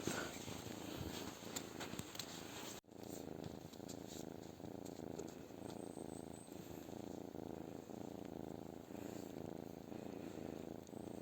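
Domestic cat purring steadily and low; the sound drops out for an instant about three seconds in.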